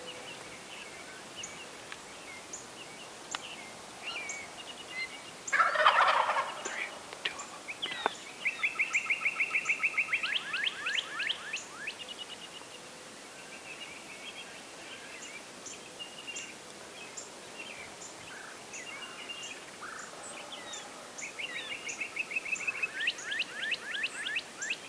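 Wild turkey gobblers gobbling several times: a loud gobble about six seconds in, then quick rattling runs of calls from about eight to twelve seconds and again near the end.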